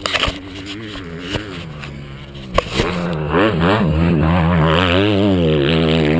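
Yamaha YZ125 two-stroke motocross bike engine running at a low, uneven idle, its revs wavering up and down. A sharp knock comes a little over halfway through, and right after it the engine is louder.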